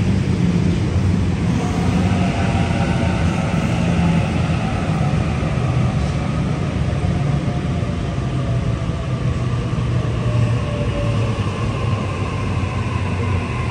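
A Sydney Trains Waratah double-deck electric train running past along an underground station platform. Its wheels rumble on the rails while the traction motors give several steady whining tones that drift gently in pitch.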